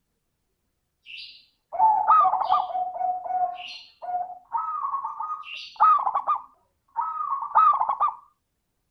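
Perkutut (zebra dove) singing: several phrases of rapid, rolling coos starting about two seconds in, with short high chirps between the phrases.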